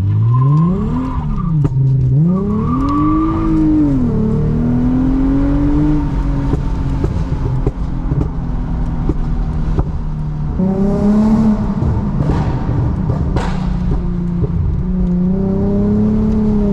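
Lexus IS350's 3.5-litre V6, on an MForce tune, revving up and down: two quick blips in the first few seconds, a steadier stretch, then rising again about ten seconds in and near the end. Sharp cracks show here and there.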